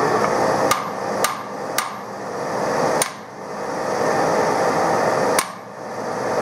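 Five sharp hammer blows on metal at the lathe's four-jaw chuck and workpiece, three quick ones close together and then two more spaced out, over a steady background hum.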